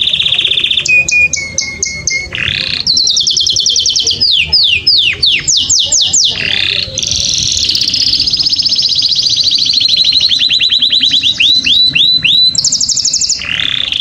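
Domestic canary singing a loud, continuous song of fast trills that switch to a new repeated note every second or two, some of the notes sweeping sharply down in pitch.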